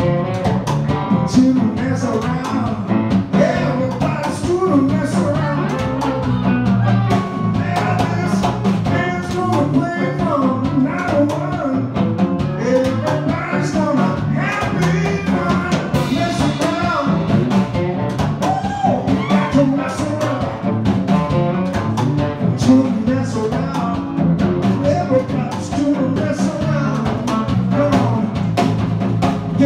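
Live band playing a bluesy rock-and-roll number: electric guitar and drum kit with a man singing.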